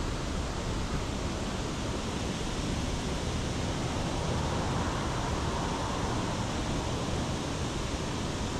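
Steady rushing of water spilling over a small dam, an even noise with no breaks.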